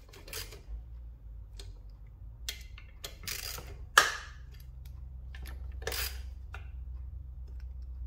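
Hand tools tightening the crankcase bolts of a Yamaha Zuma / Minarelli two-stroke engine case: scattered metallic clicks and taps, with one sharp knock about four seconds in and another about six seconds in.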